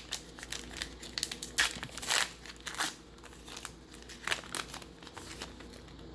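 Crinkling and crackling of a foil baseball-card pack wrapper being handled, in irregular crackles, the loudest about two seconds in.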